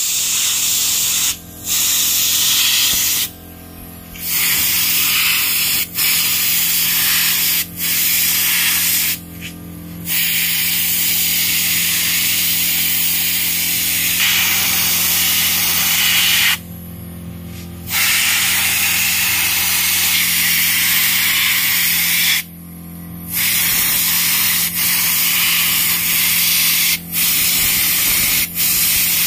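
Compressed-air spray gun spraying finish onto a carved wooden headboard: a loud steady hiss that cuts off and restarts about nine times as the trigger is released and pulled again. A steady low hum runs underneath.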